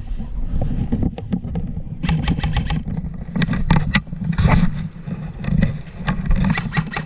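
Airsoft gun firing two short bursts of rapid clicks, about ten a second, one about two seconds in and one near the end, with a few single shots between. Heavy wind and handling rumble on the microphone underneath.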